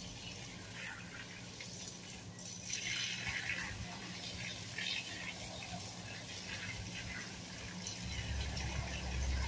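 Water from a garden hose spraying and splattering onto plants and soil in a steady stream.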